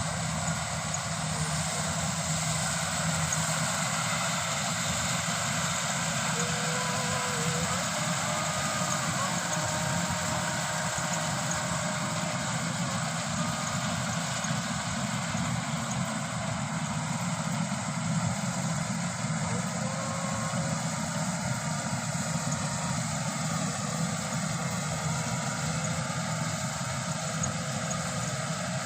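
Combine harvester running steadily while harvesting rice, its engine and threshing machinery giving a constant mechanical drone.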